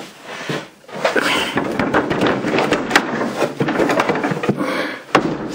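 Rustling with many small knocks and clicks of things being handled and moved, starting about a second in and stopping shortly before the end.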